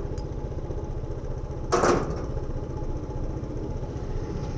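Suzuki Intruder 125's single-cylinder engine running steadily at low revs in slow traffic. A brief, loud clatter cuts in about two seconds in.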